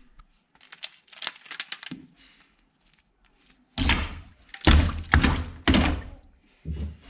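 Workshop handling noise: light clicking and rattling, then about five heavy thuds over the second half.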